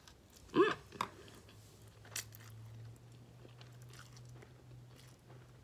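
A person eating a forkful of instant noodles: quiet chewing with a few sharp mouth clicks, and a short hum about half a second in.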